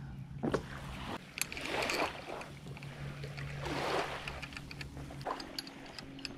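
Small waves washing onto a gravel shore in two soft swells, about two seconds apart, over a low steady hum. Light clicks come from hands working a joint on a black pole.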